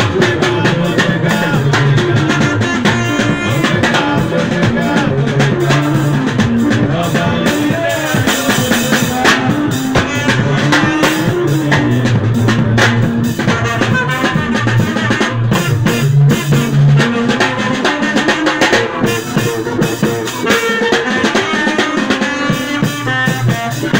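Live band playing, with a snare drum, rimshots and a cymbal up front, over keyboard, electric guitar and saxophone, and a tambourine.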